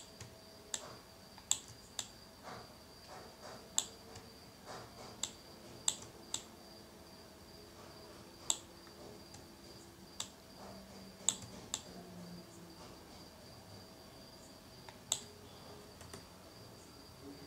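Computer mouse clicking at irregular intervals, a second or two apart, while a logo is dragged and resized, over a faint steady high whine.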